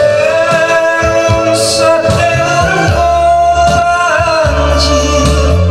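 A man singing a Korean popular song through a handheld microphone over instrumental accompaniment, holding long notes.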